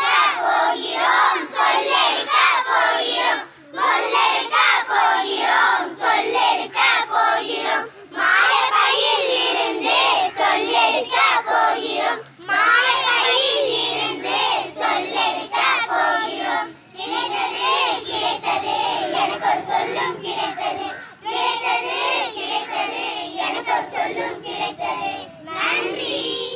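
A group of children singing together in Tamil, in phrases of about four seconds with short breaks between them.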